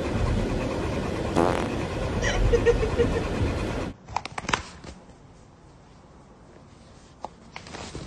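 Steady low rumble of a car's cabin for about four seconds, with a couple of short sounds over it; then it cuts to a much quieter room with scattered clicks and taps of cardboard boxes being handled.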